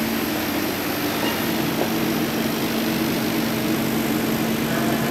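A laser cutting machine's fans and pumps running: a steady hum under an even rushing hiss.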